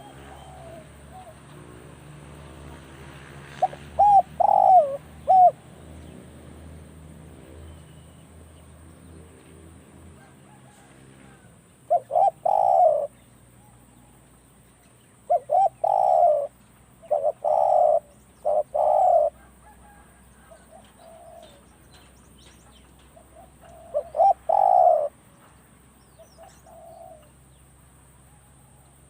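Spotted doves cooing: short, loud phrases of a few notes each, coming in groups several seconds apart, about five in all.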